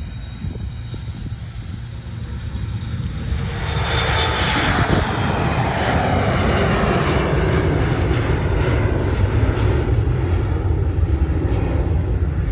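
Jet airliner's engines running at takeoff power. A low rumble swells about three seconds in into a loud, steady roar that holds.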